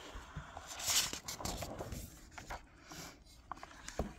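Paper rustling as a picture book's page is turned, loudest about a second in, followed by light clicks and taps of the book being handled.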